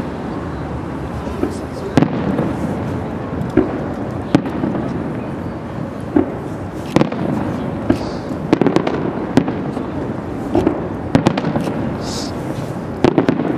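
Aerial firework shells bursting in a display, a string of sharp bangs at irregular intervals that come thicker in the second half.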